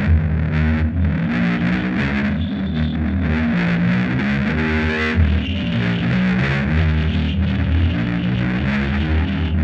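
Heavy rock instrumental: distorted electric guitar and bass guitar playing a riff over a steady beat, with no vocals.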